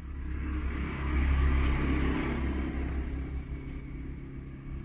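Yamaha YZF-R1's crossplane inline-four running at idle through an Austin Racing aftermarket exhaust. It swells louder about a second in, then eases back.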